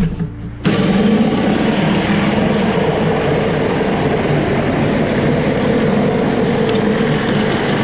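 Gas-engine pressure washer: the spray starts suddenly about half a second in and then runs steadily, a loud hiss of the water jet over the engine's drone under load.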